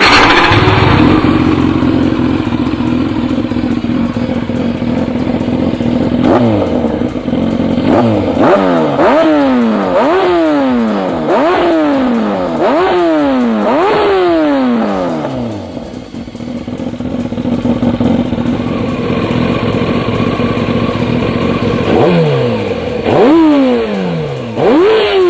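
Yamaha YZF600R's inline-four engine, fitted with a one-off aftermarket muffler, idling and being revved in quick throttle blips: each rev jumps up sharply and falls slowly back. About six seconds of idle, then a string of blips, another stretch of idle, and more blips near the end.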